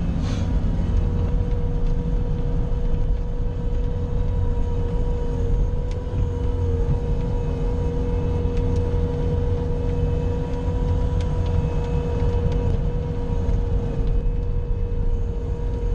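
Bobcat skid-steer loader's engine running steadily: a low drone with a steady whine held over it.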